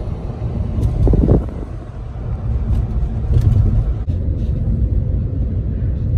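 Road and engine noise inside a moving car's cabin: a steady low rumble, briefly louder about a second in.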